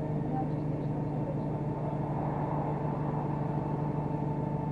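Steady mechanical hum with several held tones over a rough low rumble, unchanging throughout.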